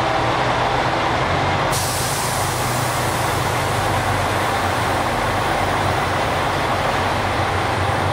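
JR Shikoku 2000 series diesel railcar pulling out, its diesel engines running steadily under the rumble of the train. About two seconds in, a steady hiss joins.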